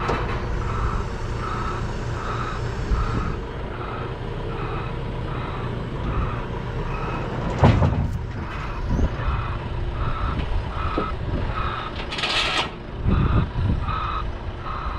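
A vehicle's reversing alarm beeping steadily, about two and a half beeps a second, over a diesel engine running. There is a single sharp knock about halfway through and a short burst of air hiss a little before the end.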